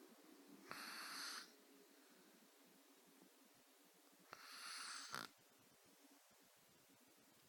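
Sleeping house cat snoring lightly: two breathy snores, about three and a half seconds apart.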